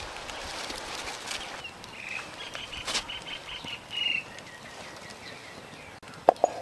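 Dry palm leaves rustling as they are pushed into a clay stove's firebox, then a bird singing a run of short repeated whistled notes. Near the end a metal pot is set down on the stove's metal pot stand with two sharp clanks, the loudest sounds.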